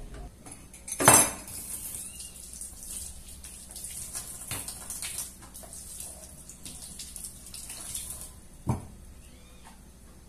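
Kitchen-sink clatter of dishes and utensils, with a sharp clatter about a second in and a knock near the end. A tap runs for several seconds in between, and small clicks of things being handled can be heard under it.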